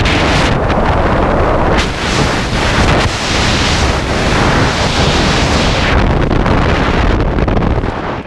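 Freefall airflow blasting across the camera's microphone: a loud, constant wind roar that dips briefly about two seconds in and again near the end as the body turns in the air.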